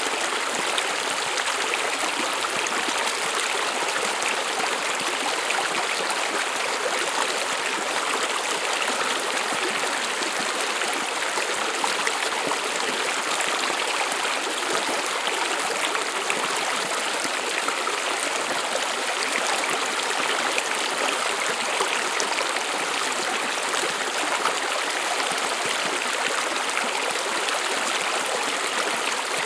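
Stream of water running over rocks, a steady even rushing and babbling.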